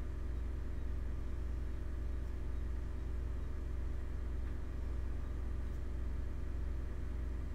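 Steady low hum, even throughout, with no other events.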